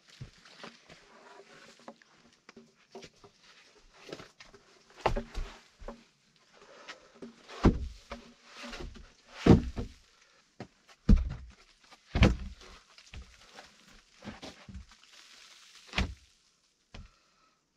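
Heavy wooden logs being handled and set down, knocking against other logs with about half a dozen loud dull thuds. Rustling and shuffling come between the knocks.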